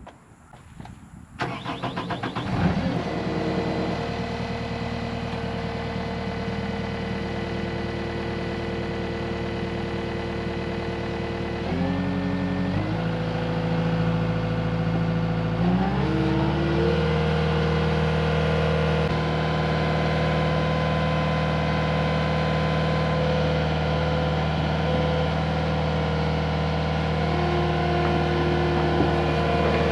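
Skid steer's diesel engine starting about a second and a half in, then running steadily; about halfway through its pitch shifts and it settles at a higher, steady engine speed.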